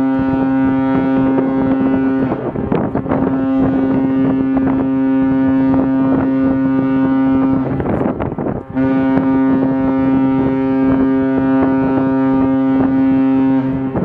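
Large cruise ship's horn sounding a loud, low, steady blast of several seconds, breaking off briefly about eight seconds in and then sounding again for about five seconds. Wind buffets the microphone.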